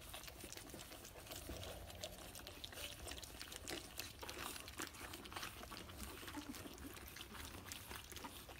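Several pug puppies lapping and slurping wet gruel from a glass dish: a dense, steady run of small wet smacks and clicks.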